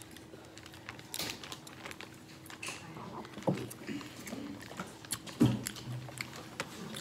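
Seafood shells crackling and clicking as they are peeled by hand, with chewing close to the microphone. A sharp knock about five and a half seconds in is the loudest sound, with a faint steady hum underneath.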